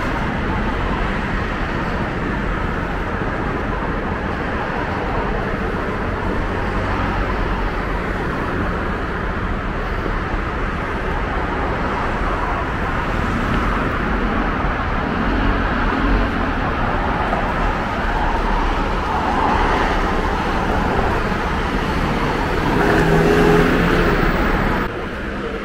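Steady road traffic on a busy city street, with cars running and passing.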